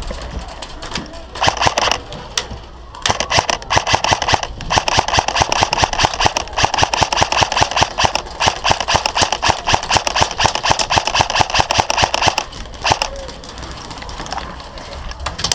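G&P M4 airsoft electric gun firing on full auto: a short burst about a second and a half in, then one long burst of about nine seconds, then a brief burst near the end, each a rapid even rattle of shots.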